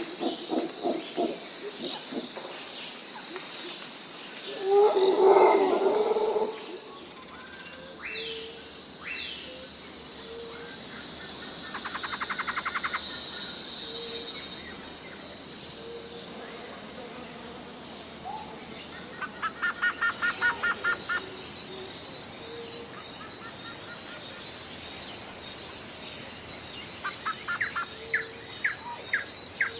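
Outdoor nature ambience: birds chirping and singing in quick trills over a steady high insect drone. A run of quick low hoots opens it, and a louder animal call comes about five seconds in.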